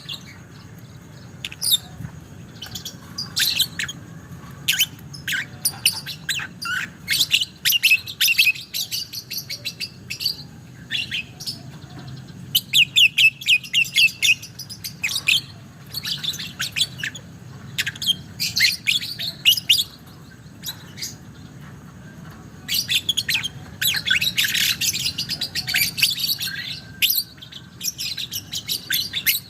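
Lovebird chattering in long runs of rapid, high chirps, the extended trilling song that keepers call "ngekek panjang". There is a fast repeated series about halfway through and a dense, busy stretch near the end.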